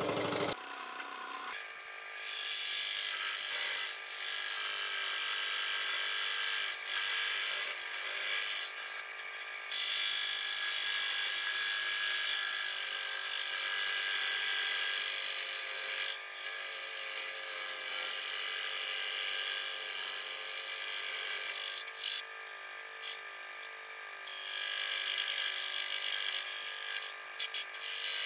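Electric scroll saw running and cutting through a blank plastic CD, its fine reciprocating blade chattering steadily. The level rises and falls several times as the disc is fed into the blade.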